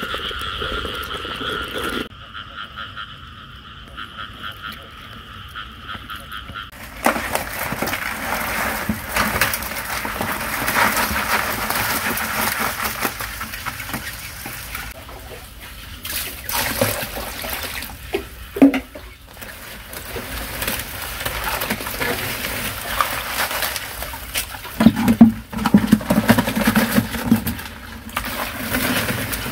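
A frog chorus calls steadily for the first several seconds. After that, water splashes and live crabs clatter and scrabble in a basin of water as they are tipped in and handled, with many short clicks.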